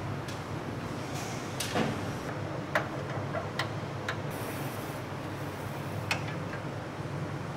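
Metal parts of a servo bar feeder clicking and clacking as a bar pusher rod and its carriage are fitted by hand: about five sharp knocks spread over several seconds, the loudest about three seconds in, over a steady low hum.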